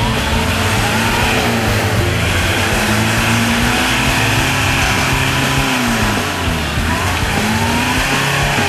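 Toyota Hilux ute's engine revving under load as it climbs a muddy slope in four-wheel drive. The revs rise and fall several times.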